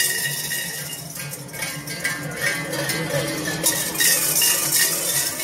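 Large metal bells worn by Krampus and Perchten costumed figures, clanging and jangling in uneven clusters as they walk, over a murmur of the crowd.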